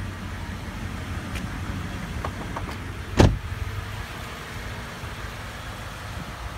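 A pickup truck's door shut with one solid thump about three seconds in, a few light latch-like clicks just before it, over a steady low rumble.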